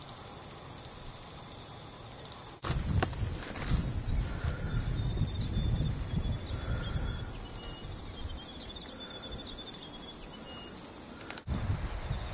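Steady, high-pitched insect chorus. About two and a half seconds in it jumps louder and is joined by low rustling and thudding from people walking through long grass. Near the end both drop back.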